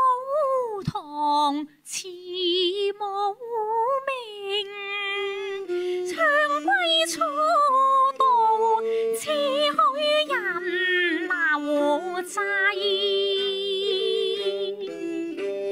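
A woman singing a Cantonese opera (yuequ) melody with a wavering vibrato on held notes, accompanied by her own bowed erhu and a plucked Chinese lute.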